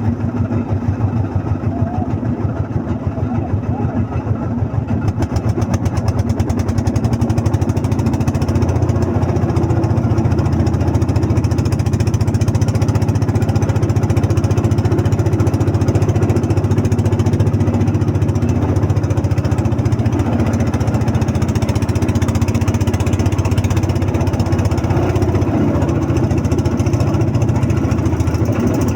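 Engine of a motorised river boat running steadily, growing a little louder over the first several seconds and then holding even.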